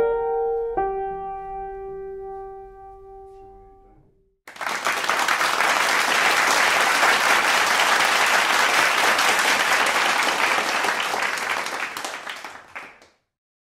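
Upright piano's last notes ringing and fading away over about four seconds. After a short silence, applause starts suddenly, runs steadily for about eight seconds, then fades out.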